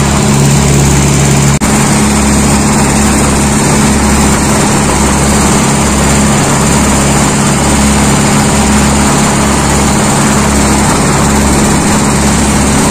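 Speedboat's engine running steadily at high speed, with a constant rush of water along the hull. There is a split-second dropout about one and a half seconds in.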